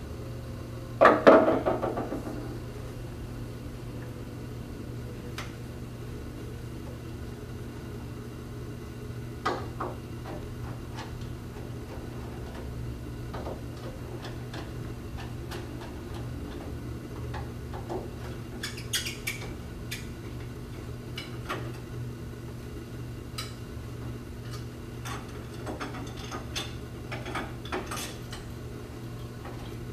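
Metal clinks and clicks of a door's lever handle set being taken off: a loud metallic rattle about a second in, then scattered light clicks and knocks over a steady low hum.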